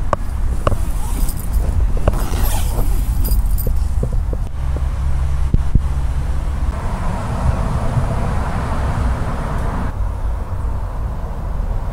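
Steady low rumble of road traffic. In the first few seconds it is joined by clicks and rustling from the tent's zip and fabric being handled, and a louder hiss swells from about seven seconds in until about ten.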